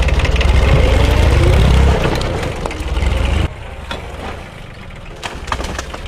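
An engine running with a steady low rumble, loudest in the first two seconds, that cuts off abruptly about three and a half seconds in. Scattered light knocks and clicks follow.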